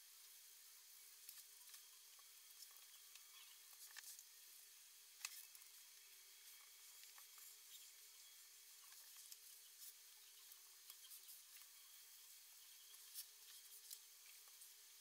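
Near silence: a paintbrush working on paper, with soft scratches and scattered small clicks over a faint steady hiss and hum. The clicks are loudest about five seconds in and again near the end.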